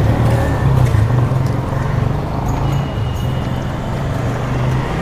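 A motor vehicle's engine running close by with a steady low hum, over general street noise; the hum stops near the end.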